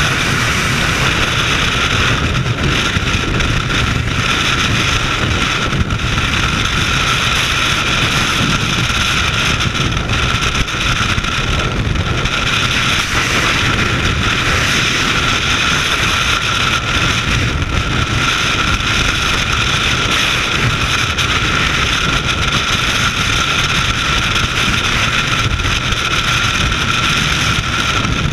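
Freefall airflow rushing over a skydiver's camera microphone: a loud, steady wind rush with a constant high tone in it, unbroken throughout.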